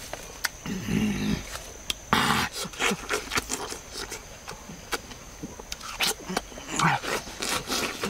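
A person eating watermelon close to the microphone: crisp bites and chewing, with clusters of crunching about two seconds in and again near the end.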